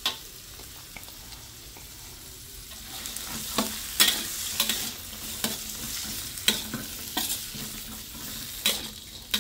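Diced potatoes sizzling steadily in hot oil in a stainless steel wok. From about three seconds in, a metal spatula stirs them, knocking and scraping against the wok in sharp clicks every half second to second.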